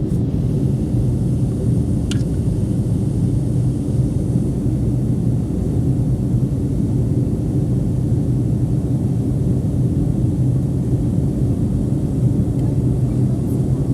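Boeing 757-200 heard from inside the passenger cabin, its engines and airflow making a steady low drone with a constant hum.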